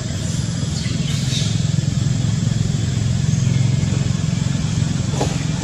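A steady low rumble, with faint brief high sounds about a second in and again near the end.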